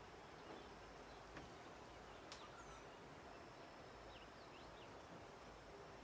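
Faint natural ambience from a forested hillside: a thin, high, steady insect whine in the second half and a few short, faint bird chirps about four seconds in. A single faint click comes a little over two seconds in.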